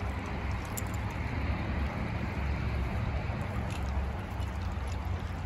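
Steady low rumble of wind on the microphone over an even hiss, with a few faint clicks.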